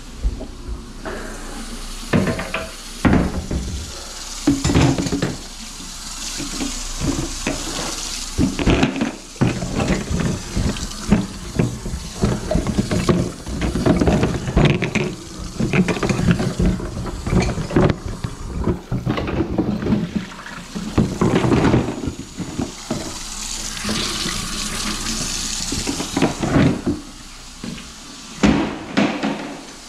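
Tap water running into a stainless steel sink while a grimy plastic bucket and metal plumbing tools are rinsed and handled, with many knocks and clanks against the sink. The water hiss rises in two spells, about a quarter of the way in and again near the end.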